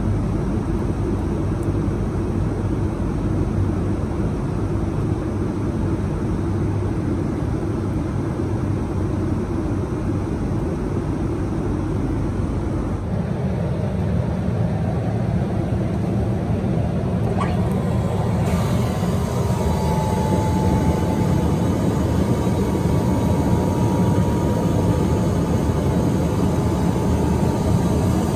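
Steady cabin roar of an Airbus A330-300 airliner in cruise. About halfway through the sound shifts, and after a click a few seconds later a faint steady whine and hum join it: the galley trash compactor running.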